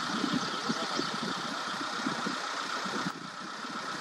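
A vehicle engine idling steadily, with a steady high hum over it; the higher sounds drop away slightly about three seconds in.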